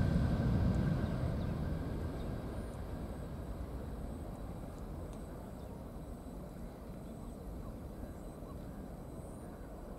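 Boeing 737-300 freighter's CFM56-3 jet engines at takeoff thrust: a low rumble that fades steadily over the first few seconds as the aircraft lifts off and climbs away, leaving a faint, steady distant rumble.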